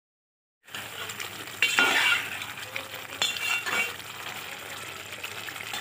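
Chicken, onion-tomato masala and yogurt sizzling as they fry in a metal pot, stirred with a metal spatula that scrapes against the pot. The sound cuts in abruptly under a second in, and the loudest scrapes come about a second and a half in and twice more around the middle.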